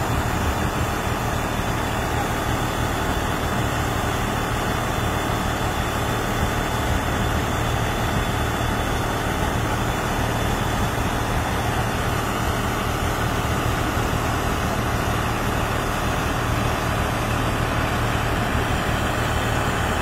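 Combine harvester's diesel engine running steadily at working speed while its unloading auger pours threshed rice into a truck bed; a loud, even machine noise throughout.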